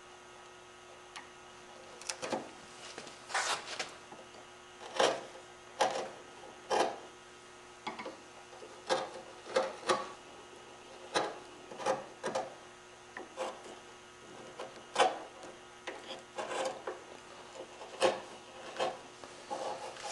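A narrow bench chisel paring thin shavings of curly maple from the insides of dovetail sockets by hand: some twenty short scraping strokes at uneven intervals.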